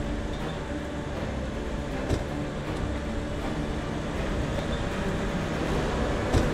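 Fire engine's motor running steadily at the fire ground, a low drone with a steady hum. There is a short knock about two seconds in and a louder thump near the end.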